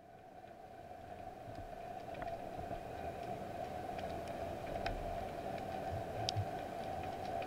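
Underwater ambience heard through a diving camera: a steady hum that grows louder over the first couple of seconds and then holds, with scattered sharp clicks and crackles.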